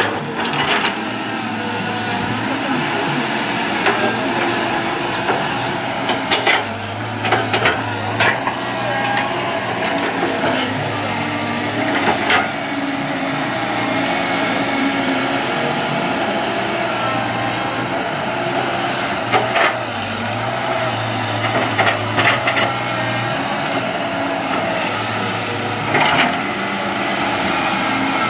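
CAT 312D hydraulic excavator at work: its diesel engine runs steadily, its pitch shifting with the hydraulic load. Sharp metallic clanks of the bucket and linkage come about a dozen times, irregularly spaced.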